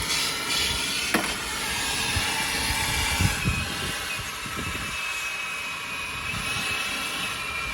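Plumber's hand soldering torch with a big tip, its gas turned up full, giving a steady hiss with a sharp click about a second in.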